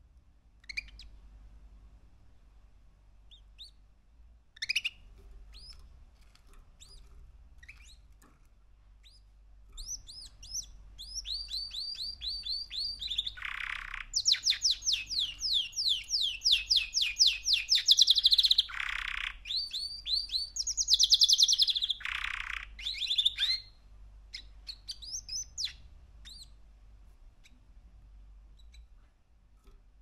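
Three-month-old male canary singing: scattered single chirps at first, then from about ten seconds in a long run of fast trills on high repeated notes lasting some fourteen seconds, then a few more chirps.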